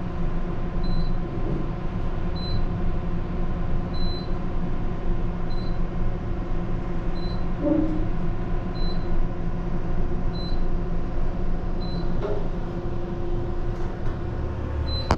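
Steady low background hum with a short, high-pitched electronic beep repeating evenly about every second and a half.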